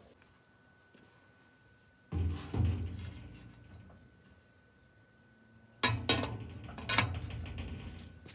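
Lid of a hammered copper cooking pot clanking against the pot: two knocks about two seconds in and three more about six to seven seconds in, each ringing briefly.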